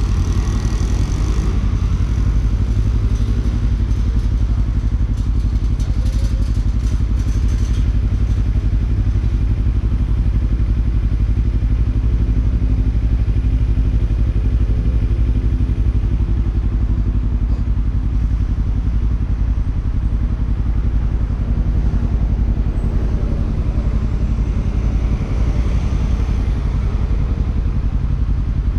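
Kawasaki Ninja 300's parallel-twin engine idling steadily with the bike at a standstill.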